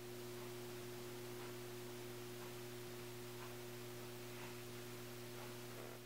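Steady electrical hum with hiss, with faint soft ticks about once a second.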